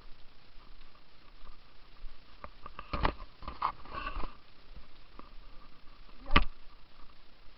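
Handling noise from a handheld camera being swung about: a few scuffs and knocks, a cluster about three to four seconds in and a single sharper knock about six seconds in, over a faint steady hiss.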